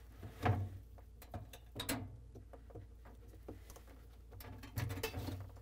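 Plastic wire-harness connectors of a refrigerator evaporator fan motor being handled and pushed together: a few scattered light clicks and wire rustles as the motor plug is connected.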